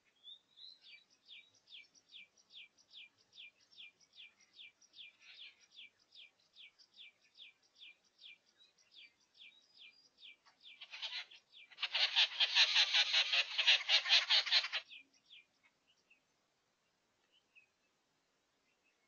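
An animal call: short, sharp, high chirps repeated steadily at about three or four a second. About eleven seconds in, a louder, harsh, rapidly pulsing rasping call breaks in for three to four seconds, and after it the chirping stops.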